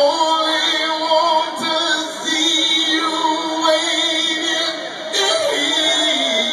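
A male rock singer singing live through a microphone and PA, holding long notes with a wavering vibrato, with a short break about two seconds in and another about five seconds in.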